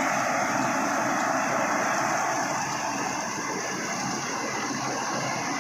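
Wheat harvesting machine running steadily: a dense, even mechanical noise with no breaks.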